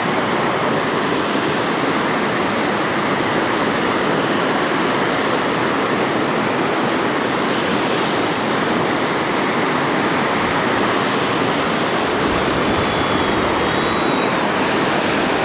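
Steady, loud rush of water pouring through a dam spillway.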